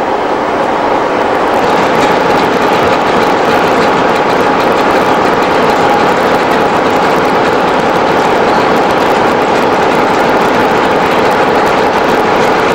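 Diesel train engine running with a loud, steady drone.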